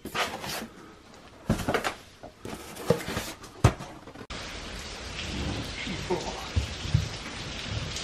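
Cardboard boxes being pulled off a metal shop shelf: a few sharp knocks and scrapes. About four seconds in, this gives way to a steady hiss.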